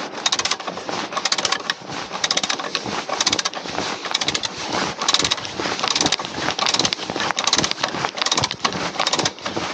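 Hand ratchet clicking in repeated back-and-forth strokes, about one quick run of clicks every second, as the wheel nuts on a mobile crane's wheel are loosened.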